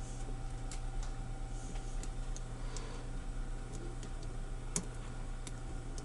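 Faint, irregular clicks and ticks of a lock pick working the wafers of a boat propeller nut lock, with one sharper click about five seconds in, over a steady low hum.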